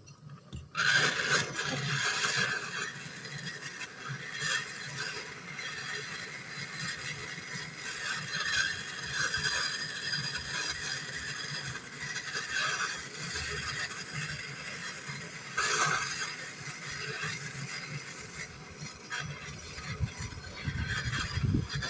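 Gas brazing torch flame hissing steadily as a tube joint on a refrigerator compressor is heated. It lights up suddenly about a second in, with a few small clicks over it.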